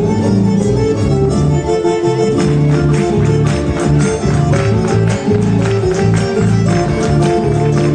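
Instrumental Argentine folk music with sustained pitched notes and plucked strings, no singing. A steady beat of hand percussion comes in about two and a half seconds in.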